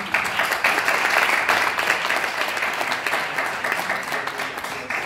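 Audience clapping, a dense steady applause that fades near the end.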